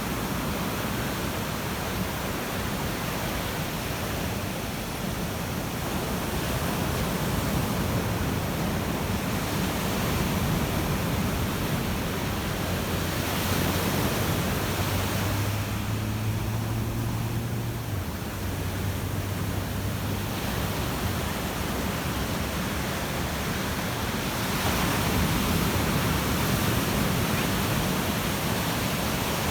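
Ocean surf breaking and washing on a beach: a continuous roar of water that swells and eases with the incoming waves. A faint low hum comes in for a few seconds around the middle.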